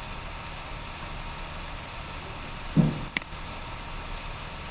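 Steady hiss of room noise through the recording microphone, broken about three seconds in by a short low thump followed by a sharp click.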